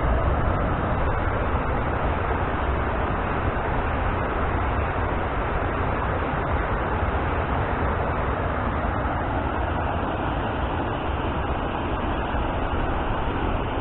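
Steady rush of water pouring over small river falls, a constant even roar.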